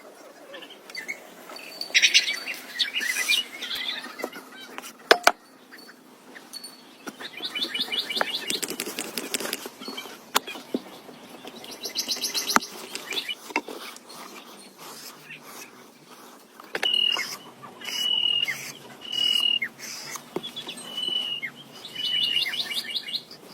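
Small bird chirping in quick trilled bouts, then, in the last several seconds, a series of short clear whistled notes about a second apart. A few sharp clicks come in between.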